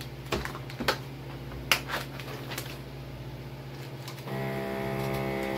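Plastic bags and packaging crinkling with sharp clicks, then about four seconds in a countertop vacuum sealer's pump motor starts and runs with a steady drone as it draws the air out of a bag.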